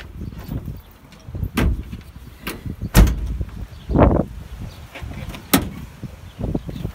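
Van rear door and dog crate being handled: a string of sharp knocks and clunks, the loudest about three seconds in, with a short scraping swell about a second later.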